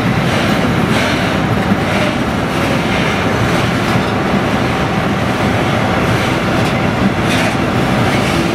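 Freight train of Falns bogie hopper wagons rolling past close by: a loud, steady rumble of wheels on rail with occasional clacks over the rail joints.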